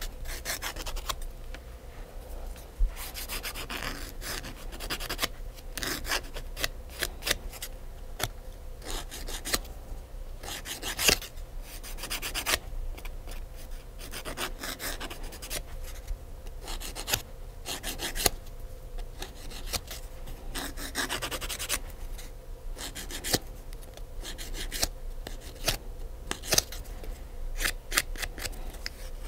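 A hand nail file rasping across fingernails in many short, uneven strokes, one scrape sharper than the rest about eleven seconds in.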